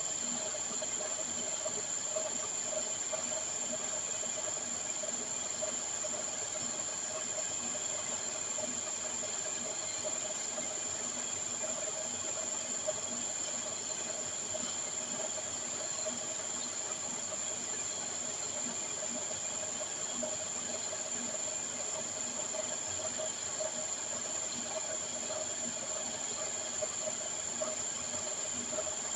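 Steady drone of gold-processing plant machinery: an even hiss with a low hum and a constant high-pitched whine, unchanging throughout.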